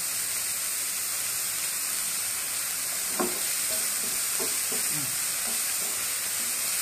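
Chopped onions sizzling steadily in oil in a non-stick frying pan as they are sautéed, with a wooden spatula scraping and stirring them a few times about halfway through.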